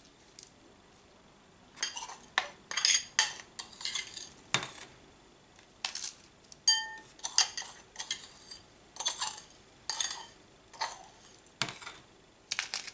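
Small washed pebbles being dropped and spread by hand onto the potting mix in an orchid pot, clattering and clinking in irregular handfuls. One clink rings out just before the middle.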